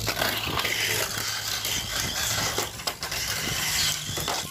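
Tamiya Mini 4WD car running along a plastic two-lane track: a steady whirring, rushing noise from its small electric motor and wheels, with a few short knocks.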